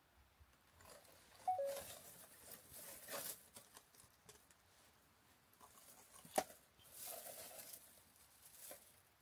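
Dry grass, dead twigs and fallen leaves rustling and crackling irregularly as a cat pushes through the undergrowth, with a sharp snap about six seconds in. A brief two-note squeak about a second and a half in.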